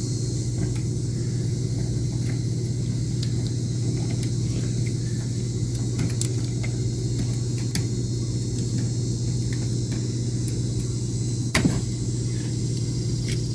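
A steady low mechanical hum at an even level, with a steady high hiss above it and scattered small clicks; one louder knock about three-quarters of the way through.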